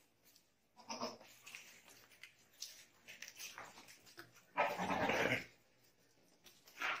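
Goats bleating: a short call about a second in, a louder and longer one past the middle, and a brief one near the end, with faint scattered sounds between.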